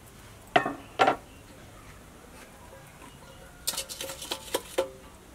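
Metal pots clanking: two sharp clanks about half a second apart near the start, then a quick run of ringing clinks as an aluminium pot is set down into a black wok.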